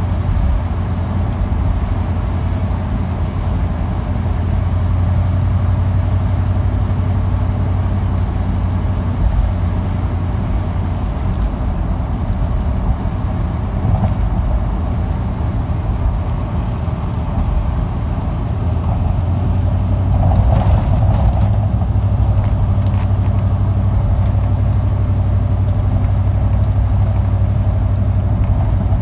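A car driving at a steady speed: a constant low drone of engine and road noise, growing slightly louder for a moment about two-thirds of the way through.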